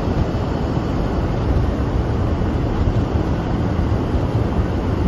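Steady rumble of a car driving on a snow-covered road, heard from inside the cabin.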